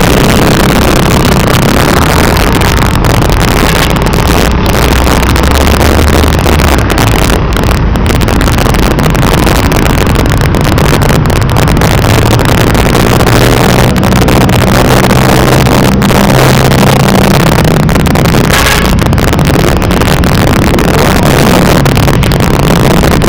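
Yamaha Aerox 155 scooter's single-cylinder engine running with a low hum that shifts in pitch as it speeds up and slows. Loud, steady wind and road rush on the handlebar camera's microphone covers it.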